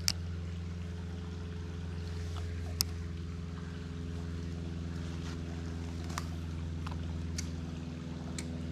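A steady, low machine-like hum that does not change in pitch, like an engine or motor running, with a few faint light clicks.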